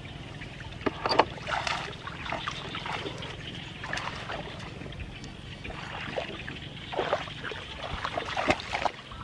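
Water splashing and sloshing at irregular intervals, as something moves through shallow lake water, over a steady low hum.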